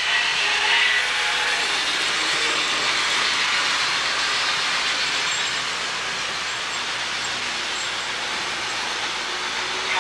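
HO scale model trains running on the layout: a steady whirring rumble of their electric motors and wheels on the track, a little quieter in the second half.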